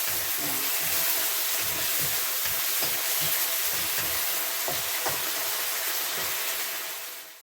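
Chicken pieces sizzling steadily in a hot pan with onion, garlic and ginger, the sizzle fading out right at the end.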